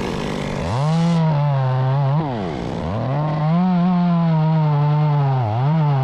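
Gas chainsaw run at high throttle in bursts: it revs up under a second in, drops off briefly about two seconds in, revs back up, and dips once more near the end before holding high again.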